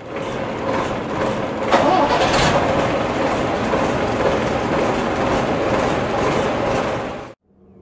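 Bus engine running loudly, getting louder a little under two seconds in, then cut off abruptly near the end.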